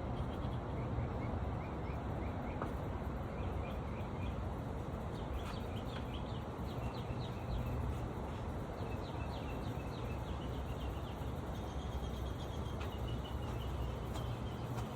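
Outdoor background of a steady low hum and hiss, with small birds chirping in quick runs of short, repeated notes throughout.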